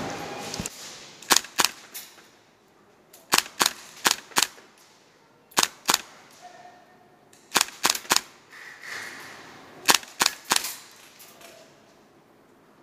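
Airsoft rifle firing five short bursts of two to five sharp shots each, roughly every two seconds.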